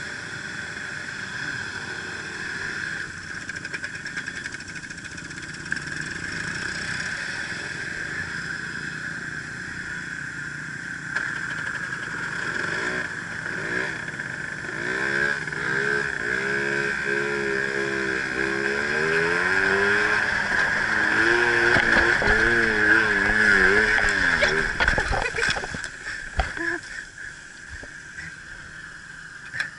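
Small 50cc scooter engine running under throttle with a steady whine, its pitch wavering up and down as it is revved over the rough track. Near the end come a cluster of knocks as the scooter goes into the brush, and the engine note falls away.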